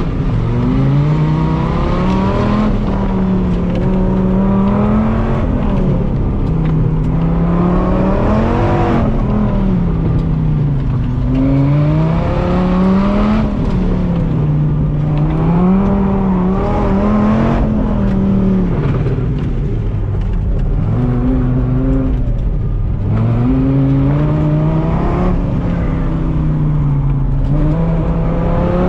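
Dodge Viper's V10 engine heard from inside the cabin during an autocross run, its pitch rising and falling again and again every second or two as the car accelerates hard between cones and lifts off for the turns.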